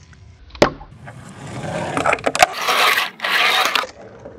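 A fingerboard smacking down sharply on a wooden mini ramp a little over half a second in, then its small wheels rolling and scraping across the wood for a couple of seconds, with another sharp click partway through.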